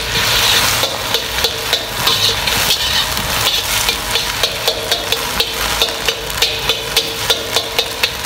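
Metal spatula striking and scraping against a wok about twice a second, chopping a cooked omelette into small pieces, over the steady sizzle of frying oil.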